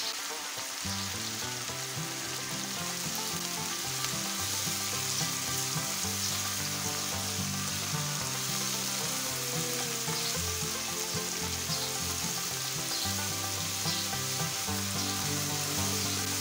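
Tomato-onion masala with freshly added spices sizzling in hot oil in a nonstick frying pan, stirred and scraped with a silicone spatula while the masala is fried down.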